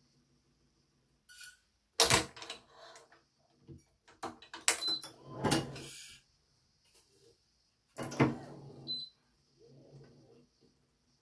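Stringing a Yonex Astrox 100ZZ badminton racket with BG80 string: sharp clicks and knocks of the stringing machine's clamps and tensioner, with scraping as the string is handled. They come in three clusters, about two seconds in, from four to six seconds, and about eight seconds in.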